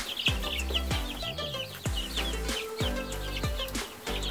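Three-week-old chicks peeping continually in short, high chirps, over background music with a steady beat.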